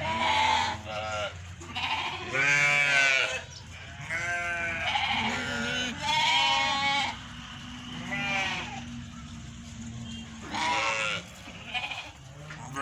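Goats bleating, several animals calling one after another, with about eight or nine loud bleats, each about half a second to a second long.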